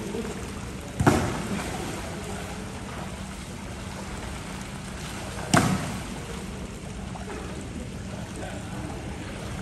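Pool water splashing and lapping as people wade and play, with two sharp slaps, about a second in and again about four and a half seconds later.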